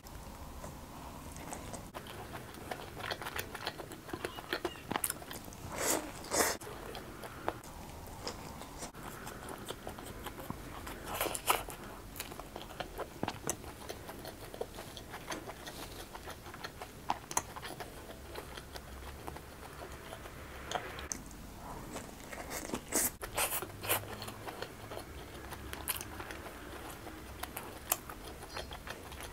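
Pizza being bitten and chewed with the mouth full: soft, wet chewing with short crisp crunches from the crust, coming in denser clusters a few times.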